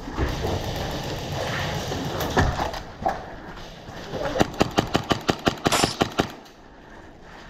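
An airsoft rifle firing a rapid string of about a dozen sharp shots, roughly seven a second, for about two seconds starting a little past the middle, after a stretch of shuffling movement noise from the player moving behind cover.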